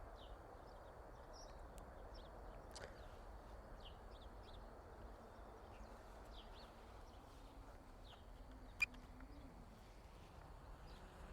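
Faint, scattered bird chirps over a low outdoor background hum, with one sharp click about nine seconds in.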